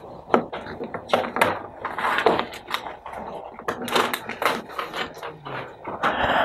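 Classroom noise: a steady run of short clicks and knocks over room hiss.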